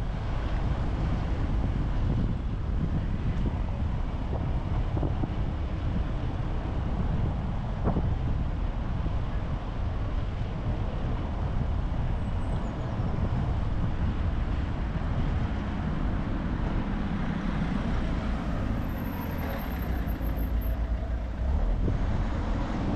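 Car driving along: steady road and engine noise, mostly a low rumble, with some wind on the microphone.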